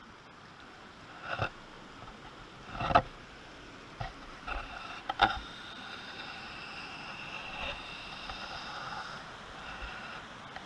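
Steady rush of river water, fading up from quiet. A few short, louder sounds break through it, the loudest about three and five seconds in.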